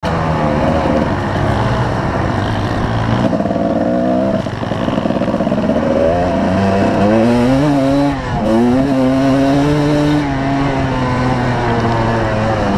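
2005 Kawasaki KDX220R's two-stroke single-cylinder engine revving as the dirt bike is ridden, its pitch rising and falling with the throttle and dipping briefly about four and eight seconds in.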